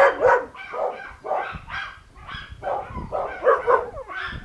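Puppies yapping: short, high barks about three a second, one after another without a break.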